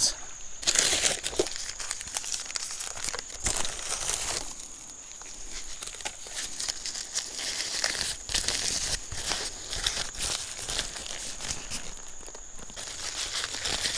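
Aluminium foil and paper wrapping crinkling and tearing in irregular handfuls as a foil-wrapped item is unwrapped by hand, over a faint steady high-pitched tone.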